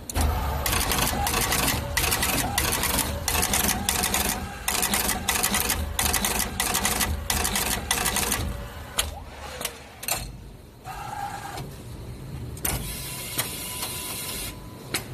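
Automatic jumper-wire insertion machine running, its head cutting, forming and pressing jumper wires into a circuit board. It makes a rapid, even mechanical clatter of about two to three strokes a second, which gives way about eight seconds in to sparser clicks and a steadier whirr.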